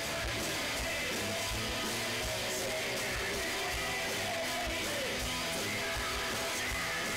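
Live rock band playing on stage: electric guitars over a steady kick-drum beat, heard from the audience.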